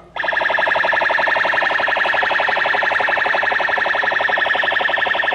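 Electronic alarm-style attention tone played over a surprise car's loudspeakers between repeats of a recorded announcement: one steady pitch pulsing quickly and evenly, starting abruptly.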